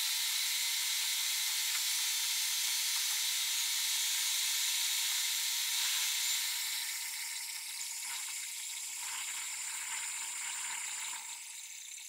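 Metal lathe turning a steel rod, the cutter taking a continuous cut along it, heard as a steady high hiss in footage sped up seven times. The hiss gets a little quieter about halfway through and again near the end.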